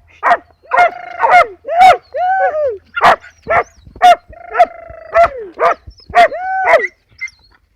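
Hunting dog barking over and over, about a dozen loud barks in quick succession, some drawn out into short bays that rise and fall in pitch; the barking stops about seven seconds in.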